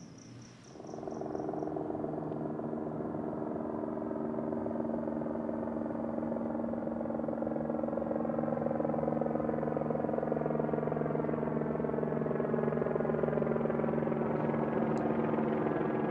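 Sustained low synthesizer drone from the film score: a steady chord of several held tones that sets in about a second in and swells slowly louder. Crickets chirp briefly at the start, and a few faint ticks come near the end.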